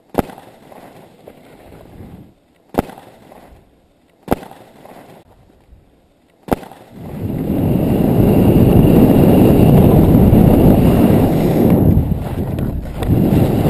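Four sharp clicks over a quiet background, then from about seven seconds in a loud, steady rumble of wind buffeting a helmet-worn camera's microphone as its wearer skis downhill, with a short dip near the end.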